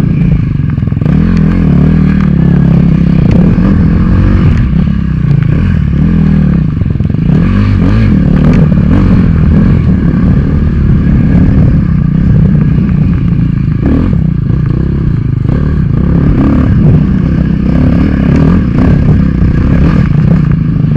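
KTM dirt bike engine ridden hard under race throttle, its pitch rising and falling with each throttle change and gear shift. Scattered knocks and clatter from the bike over the rough trail.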